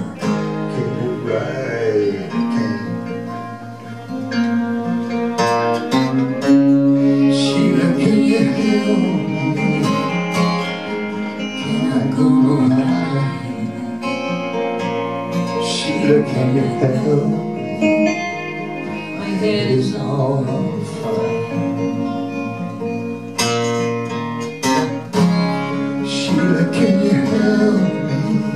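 Live folk-rock band playing an instrumental passage: strummed acoustic guitar with a violin playing a bending, gliding melody over it.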